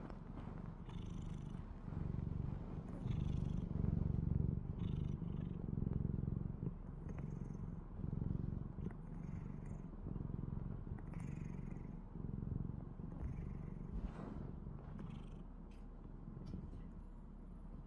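A cat snoring: a low, buzzing rumble that swells and fades with each breath.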